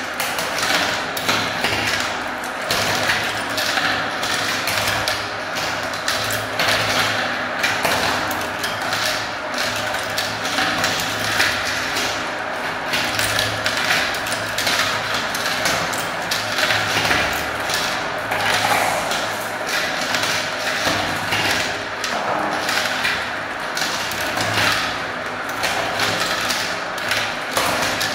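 Many small plastic balls rolling and clattering through a plastic marble run, spinning around a plastic funnel bowl and dropping into the tubes: a steady, dense stream of rattling clicks over a continuous rolling sound.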